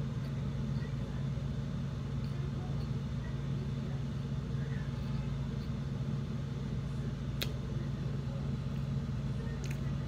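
A steady low mechanical hum, with a sharp click about seven and a half seconds in and a fainter one near the end.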